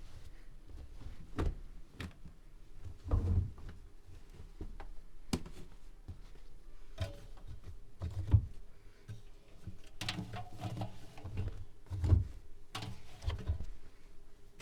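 Privileg Classic 30612 washing machine giving irregular thuds and knocks, about one every second or two, some with sharp clicks, over a faint low hum.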